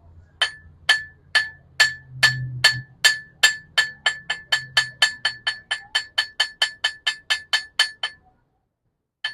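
Blacksmith's hammer striking work on an anvil in a steady run of blows, each ringing with the same clear tone. The blows quicken from about two a second to about four a second, then stop about eight seconds in.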